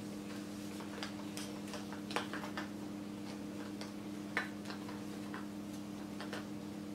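Light, irregular clicks and taps from plastic Easter eggs and wreath materials being handled, over a steady low hum.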